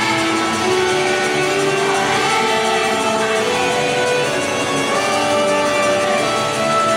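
A live rock band playing, with guitar to the fore and sustained notes held over a steady, loud backing; no singing.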